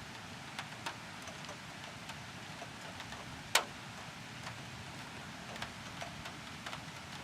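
Rain during a thunderstorm: a steady hiss with scattered drops ticking irregularly on a hard surface, one much sharper, louder tick about three and a half seconds in.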